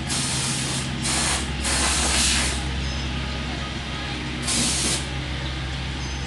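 Compressed air hissing from an air-hose blow gun in four short blasts, the third the longest, blowing dirt off a riding mower, over a steady low hum.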